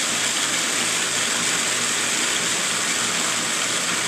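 Electric food processor running steadily, blending black bean dip.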